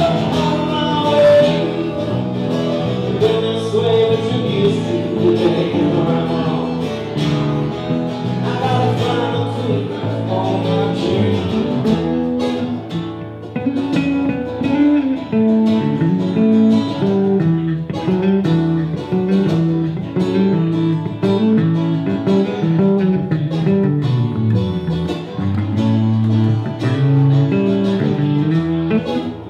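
Live band music: a man singing over acoustic guitar and electric bass. The voice drops out about twelve seconds in, leaving the guitar and a moving bass line.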